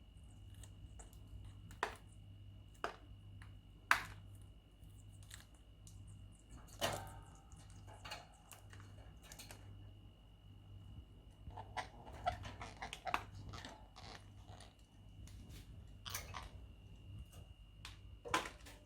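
Indian ringneck parrot biting and chewing broccoli: irregular crisp crunches and beak clicks, with a quick run of small nibbles about twelve seconds in.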